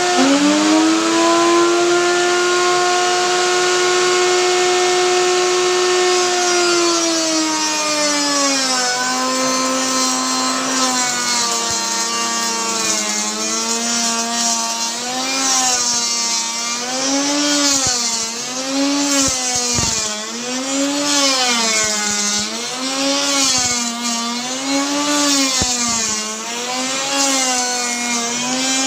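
Electric wood router running at high speed. A few seconds in, its motor pitch drops as the bit loads up cutting a groove in the wood, then rises and falls in a regular rhythm about every second and a half as the cut goes on, with a hiss of cutting on top.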